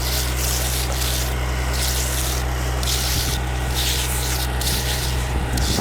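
A concrete float scraping over freshly poured wet concrete in long back-and-forth strokes, about one a second, as the slab is floated. A concrete truck's diesel engine idles low and steady underneath.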